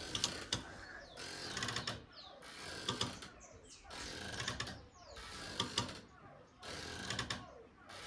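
Hammock creaking rhythmically as it swings back and forth, a surge of creaks and squeaks roughly every 1.3 seconds.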